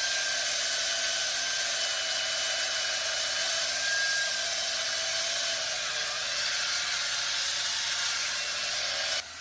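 Hydraulic diamond-blade handsaw cutting masonry: a steady grinding hiss with a faint high whine.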